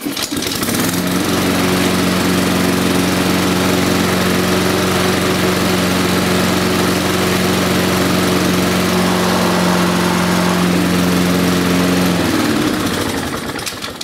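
Honda Izy lawnmower's single-cylinder four-stroke petrol engine pull-started, catching at once and running steadily at high speed, then winding down and stopping near the end. It is the first start after repeated pulls with no sign of life, which the owner puts down to fuel not yet having got through to the carburettor.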